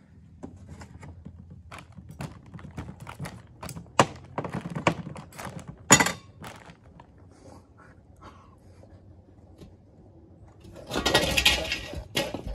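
Scattered clicks and knocks of dishes and utensils handled on a table, with two sharper knocks early on and a loud, rough noise lasting about a second and a half near the end.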